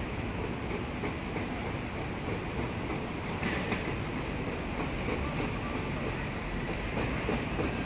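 Hong Kong double-decker electric tram on its rails with steady city street noise, and scattered light clicks from about three seconds in.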